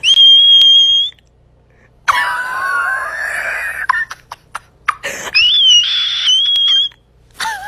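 Three loud, high-pitched shrieks: the first shrill and held steady for about a second, the second lower and wavering, the third shrill again and wavering, while a kitten grabs and bites at a bare arm.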